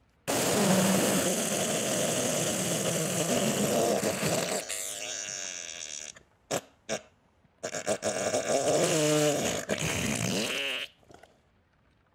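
Loud, spluttering fart sounds of a bout of diarrhea. A long blast of about four seconds is followed by two short pops, then another long sputtering stretch with a wavering tone that cuts off about eleven seconds in.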